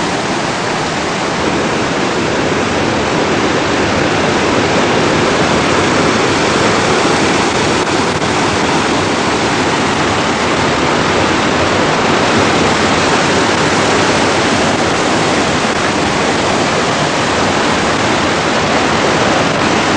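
Waterfall: loud, steady rushing of falling water.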